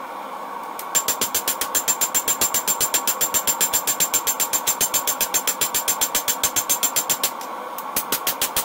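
Hand hammer striking red-hot leaf-spring steel on an anvil, sped up fourfold into a fast even run of blows, about seven a second, each with a high metallic ring. The blows stop briefly near the end, then start again, over a steady hum.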